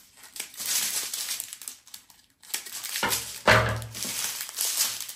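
Small plastic bags of diamond-painting drills crinkling and rustling as they are handled, with a thump about three and a half seconds in.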